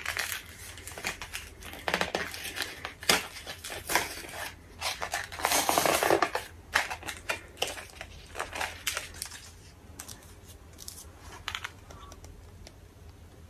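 Stiff clear-plastic blister pack of a memory card being handled and worked open: irregular crinkles, clicks and scrapes, with a longer rustling stretch about six seconds in.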